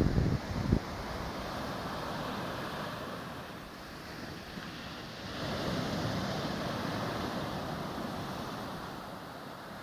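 Sea surf washing onto a sandy beach, a steady rush of breaking waves that swells about five and a half seconds in. Wind buffets the microphone in the first second.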